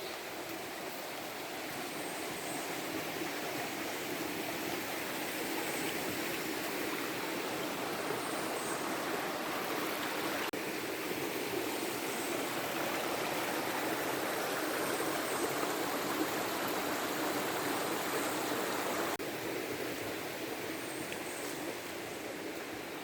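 A stream of running water rushing steadily, louder through the middle and easing a little near the end.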